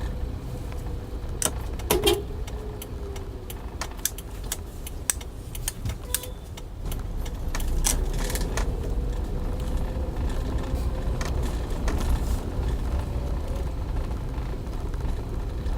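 2011 Toyota Avanza with a manual gearbox, driving, heard from inside: a steady low rumble of engine and road with a faint steady whine over it, and a scatter of sharp clicks and rattles through the first half.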